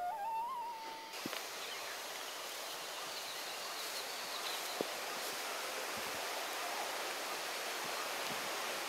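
A flute phrase glides upward and stops about a second in, giving way to steady outdoor ambience: an even hiss with faint high chirps and a few soft clicks.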